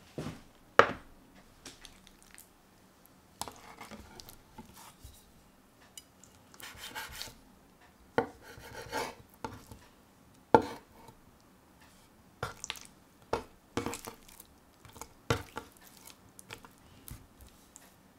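Knife knocking and scraping on a wooden cutting board as raw chicken thigh fillets are trimmed: scattered sharp knocks with short scraping strokes between them, the loudest knock about a second in.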